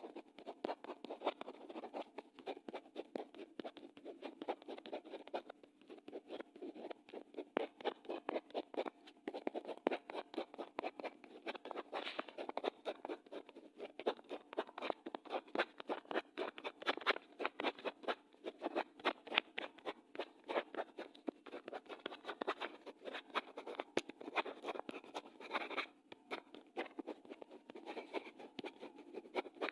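Pen writing on paper: a continuous run of short scratching strokes of the nib across the page, several a second.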